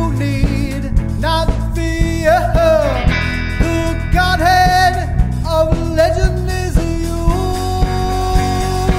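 Rock band playing: a sliding, wavering lead melody over steady bass and regular drum hits.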